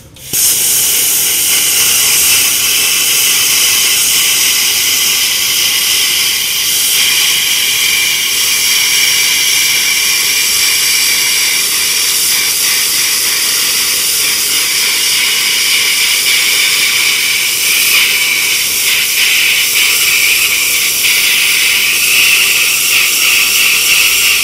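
NBC-288 inverter plasma cutter cutting a steel sheet: the plasma arc and torch air make a loud, steady hiss that starts a moment in and holds evenly.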